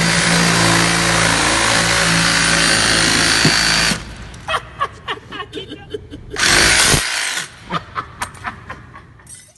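Sawzall reciprocating saw running and cutting for about four seconds, then a series of sharp knocks, a second short burst of cutting about six and a half seconds in, and more knocks.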